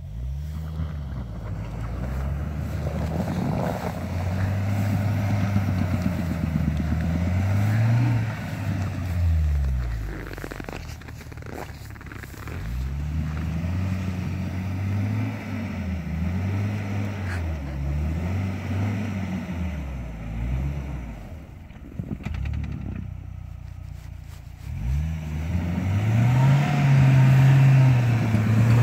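UAZ Patriot SUV's engine revving up and down over and over as it pushes through deep snow. The revs dip and ease off twice, then climb and hold high near the end as it drives up close.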